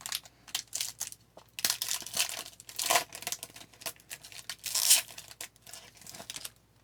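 A trading-card pack wrapper being torn open and crinkled by hand, a run of irregular rasping tears and crackles that stops shortly before the end.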